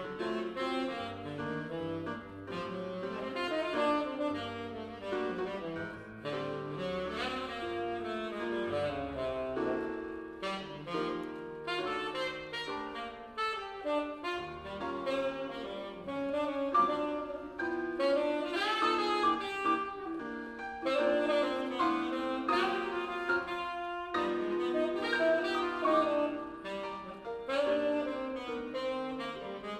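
Jazz duet of saxophone and piano: the saxophone plays a continuous melodic line over piano chords and a walking left-hand bass.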